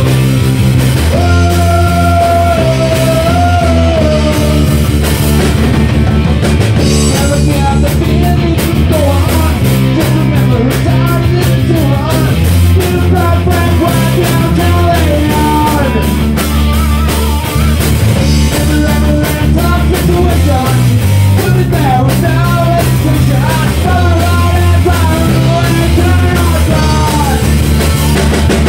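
A rock band playing loud: electric guitars, bass guitar and a drum kit, with a singer on a handheld microphone.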